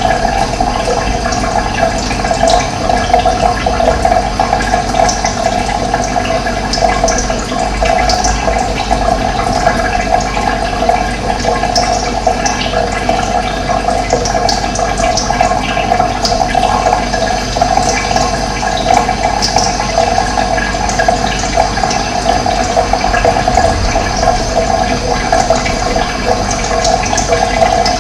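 Running water making a steady, loud rush, with short bird chirps scattered through it.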